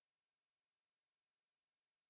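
Near silence: only a faint, steady digital noise floor.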